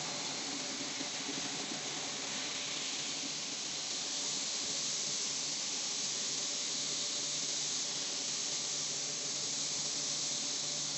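Flour-mill machinery running steadily: a dense, even hiss with a faint low hum beneath it.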